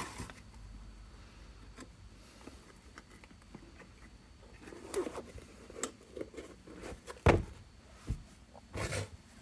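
Handling noises from unboxing a synth module's packaging: irregular rustling with scattered taps and knocks, the sharpest knock a little past seven seconds in.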